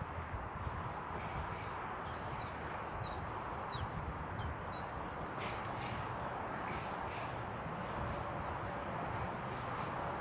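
A small songbird singing a run of quick, high, downward-sliding chirps, about three a second, from about two seconds in to about five seconds in, with a few more later on. Under it runs a steady rushing background noise.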